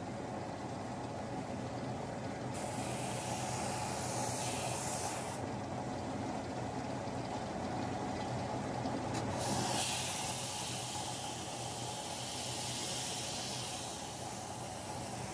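Spindle sander running with a steady hum. Twice, about two and a half seconds in and again from about ten seconds in, a rasping hiss rises over the hum as wood is pressed against the spinning sanding drum.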